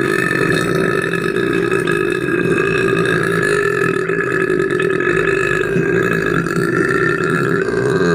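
One long, unbroken human burp held at a low, steady pitch without a break.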